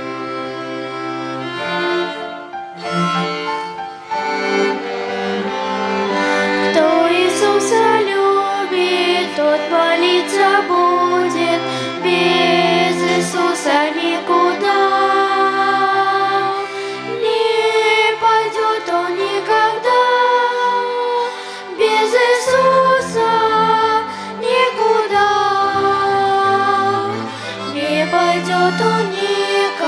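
Children's violin ensemble playing an instrumental passage of a hymn tune, with bowed melody lines over a lower sustained part.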